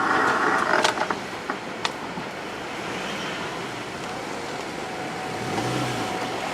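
Kintetsu 22000-series and 30000-series limited express electric train going slowly over a level crossing: a steady running noise with a few sharp wheel clicks over rail joints. A louder, higher sound in the first second stops about a second in.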